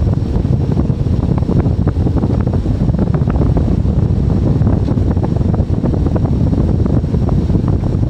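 Excavator's diesel engine running steadily under load, heard from inside the cab, with a dense, irregular rattling and knocking as the compaction wheel attachment works the backfill in the trench.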